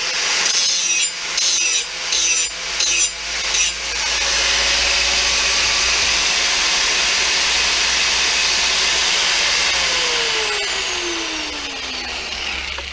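Power tool cutting through a steel saw blade in several short bursts, then one steady cut. Near the end its motor winds down with a falling whine.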